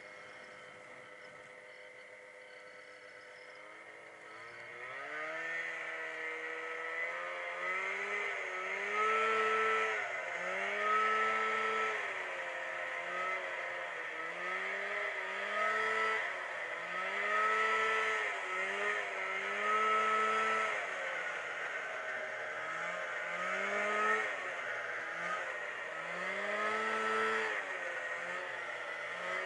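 Snowmobile engine running, low and steady at first. From about four seconds in it gets louder, and its pitch rises and falls over and over, once every second or two.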